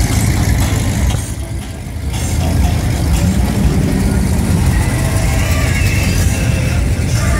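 Hot rods and classic cars cruising slowly past, their engines running low and steady; the sound drops briefly about a second in, then builds again as the next cars pass.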